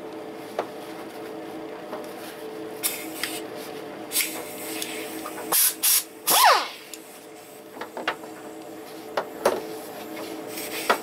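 Scotch-Brite abrasive pads scrubbing the cast-iron block of a GM 3.8L V6 clean, in short irregular strokes, the loudest a little past the middle. A steady low hum runs underneath.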